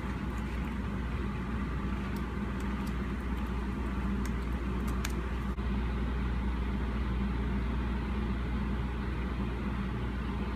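Steady low mechanical hum, with a few laptop keyboard clicks in the first five seconds.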